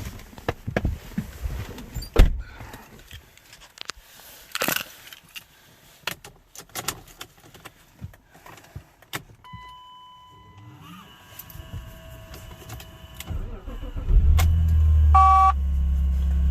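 Keys jangling and clicks of handling, then a steady electronic tone, then a BMW E39 528i's 2.8-litre straight-six cranks and catches about fourteen seconds in and settles into a steady idle. This is a cold start after the car has sat for a few days. A short electronic beep sounds just after the engine catches.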